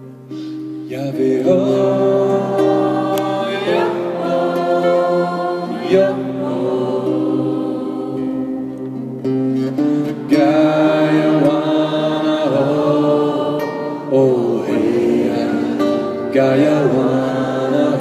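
A man sings a chant-like spiritual song over his own acoustic guitar, in long sung phrases with short breaks about ten and fourteen seconds in.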